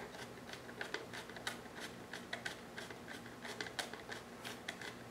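Light, irregular clicks and taps of a 5/16 nut driver working the screws out of the plastic air filter cover on a Briggs & Stratton small engine, a few clicks a second, with a faint steady hum underneath.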